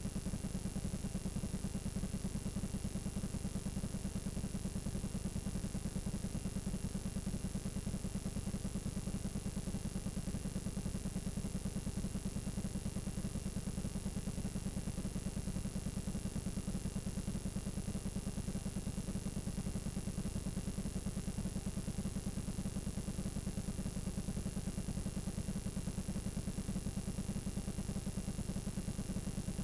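Blank analog videotape playing back: a steady low buzz with a faint, thin high-pitched whine above it.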